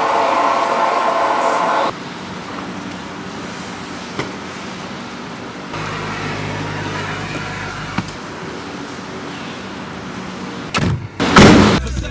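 Everyday sounds of getting into a car: a steady whirring hum that cuts off about two seconds in, then a low steady car hum. Near the end come a few clicks and a loud thump with rustling as the car door shuts.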